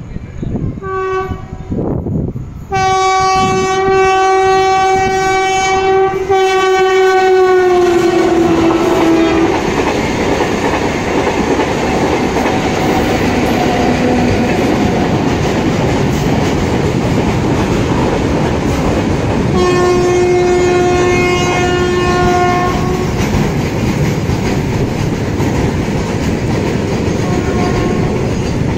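Electric locomotive horn on a WAP-7 running through the station without stopping: two short toots, then a long blast from about three seconds in that drops in pitch near its end, and another blast around twenty seconds in. Under and between the horn blasts the passing train's steady rumble and wheel clickety-clack go on.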